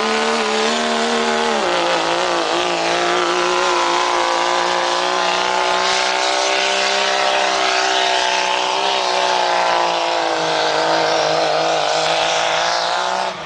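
Hopped-up Dodge pickup's 6.7-litre Cummins turbo-diesel at full throttle, hauling a pulling sled under heavy load. The loud, steady engine note climbs at first, dips briefly about two seconds in, then holds until the pull ends.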